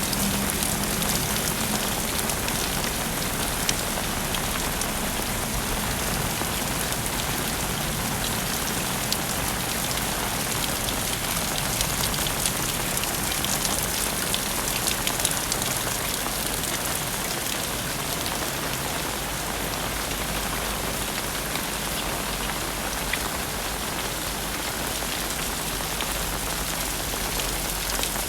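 Heavy rain falling steadily, a dense hiss with many individual drops ticking sharply through it.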